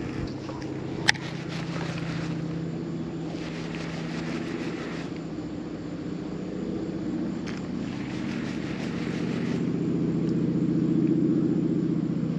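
A steady motor hum holding an even pitch, growing somewhat louder in the last few seconds, with one sharp click about a second in.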